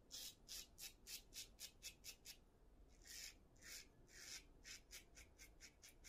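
Safety razor blade scraping through lathered stubble on the neck: faint, quick scratchy strokes, about three or four a second, with a short pause around the middle.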